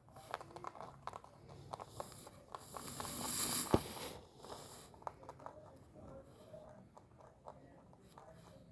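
Rabbit chewing and crunching food, a quick run of small crisp clicks. About three seconds in, a louder rustling hiss with one sharp click rises and fades over about a second and a half.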